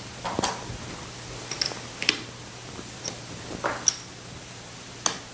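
Casino chips clicking against each other as they are picked up and set down by hand, in about seven separate, irregular clicks.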